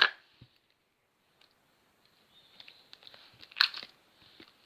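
Gel slime being handled in its container: faint, irregular crackly clicks, with a louder crackle about three and a half seconds in after a quiet stretch.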